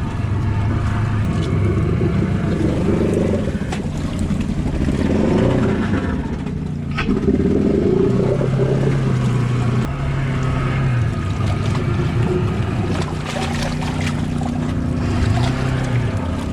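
Polaris Ranger side-by-side engine, with its air box removed, pulling through deep water. The engine speed steps up partway through and rises and falls again near the end.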